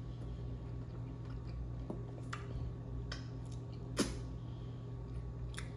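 A person chewing a mouthful of food, with a few short, sharp mouth or utensil clicks, the clearest about four seconds in, over a steady low hum.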